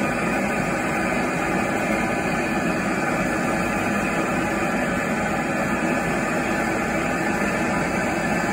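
A steady, loud rushing noise that runs without a break or change.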